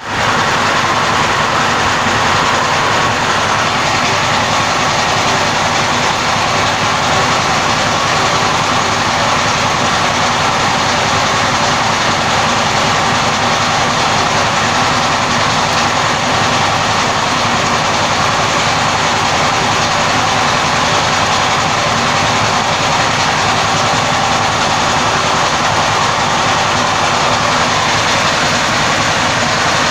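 Cummins diesel engine running steadily at a constant loud level, with a fast even rhythm underneath.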